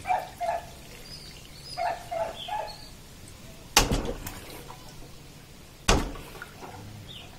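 Birds chirping in short calls, with two sharp knocks about two seconds apart that are the loudest sounds.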